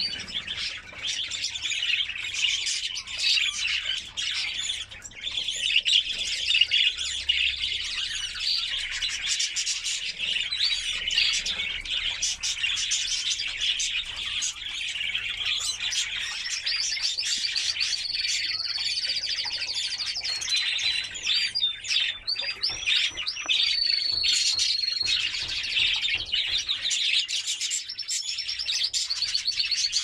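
White domestic canary singing a continuous song of rapid warbles and trills. In the second half it sings long, even rolls and a few quick rising-and-falling whistles.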